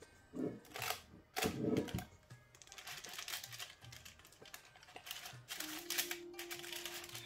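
Light background music with a steady beat, over irregular clicks and scrapes of a silicone spatula scooping whipped egg-white meringue from a steel bowl onto baking paper. Two louder scraping bursts come in the first two seconds.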